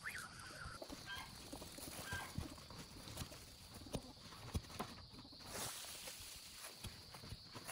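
Loose soil being dug and scraped away around a young bamboo shoot: scattered soft knocks, scuffs and crumbling earth as a foot in a plastic sandal pushes the dirt aside. A short falling whistle sounds right at the start.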